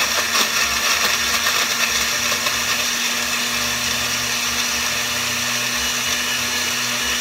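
Countertop blender with a glass jar running loudly on its ice-crush setting, chopping ice cubes and partly frozen bananas in milk. Crunching ice rattles through the blades for the first second or so, then the blending settles into an even whirr.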